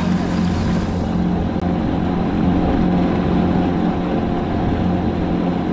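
Mercury 60 hp outboard motor on a 16-foot aluminium fishing boat running steadily at an even speed, a constant low hum with no change in pitch.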